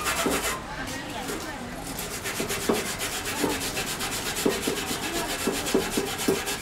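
Fingers rubbing along the folded edge of a sheet-tin box, a steady scratchy rubbing with several short ticks in the second half.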